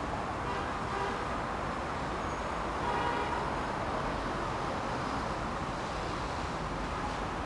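Passenger train rolling past, a steady rumbling noise with a slight swell and faint higher ringing tones about three seconds in.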